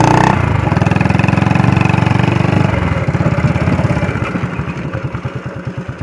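An engine running with an even, pulsing beat, loud at first and fading away from about three seconds in.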